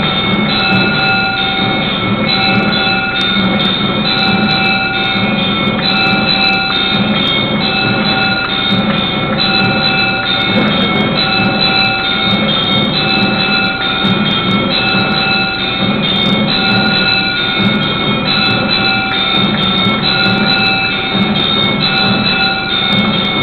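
Temple arati bells and instruments sounding without pause: several ringing tones come and go about once a second over a steady low hum, with many small sharp clicks.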